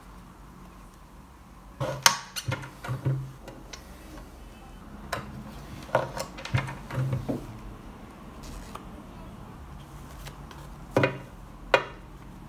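Desktop lever-operated binding hole punch working a block of notebook pages: clusters of clicks and knocks as the block is set in and the lever is pulled down to punch a row of holes, about two seconds in and again around six seconds in, then two sharp knocks near the end.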